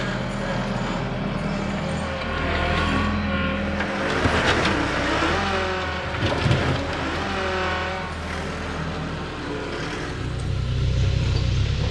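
Diesel engine of a compact track loader running as the machine drives in on its rubber tracks and backs out again, engine speed rising and falling, with a wavering high whine while it moves and a burst of scraping noise about four seconds in. Near the end a deeper engine drone grows louder.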